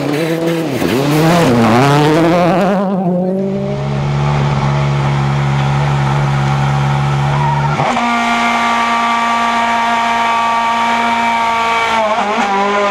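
Rally car engine revving hard with quick dips in pitch, then held at steady revs for several seconds. About eight seconds in it steps up to a higher steady pitch, and near the end it revs up again.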